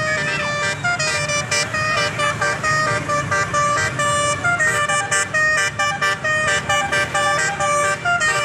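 Basuri telolet musical bus horn playing a fast tune of short stepped notes, several a second, over the low rumble of the bus's engine running.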